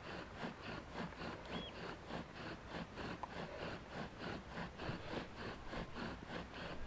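Bow drill being worked for a friction-fire ember: the bow sawing back and forth and the wooden spindle turning in the hearth, in an even rhythm of about four strokes a second.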